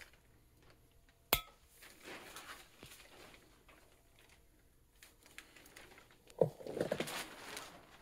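A sharp metallic click a little over a second in, then some rustling. From about six and a half seconds in comes a louder run of clinks and knocks: snap ring pliers and a steel suspension arm being handled.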